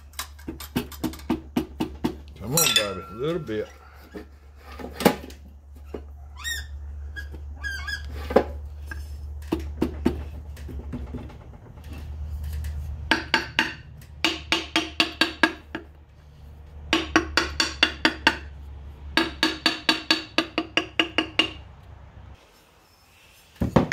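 Light metallic taps and knocks on the aluminium crankcase cover of a Honda GX390 as it is worked down over the crankshaft and oil seal. The taps come singly and in quick runs of about four a second, over a steady low hum that stops shortly before the end.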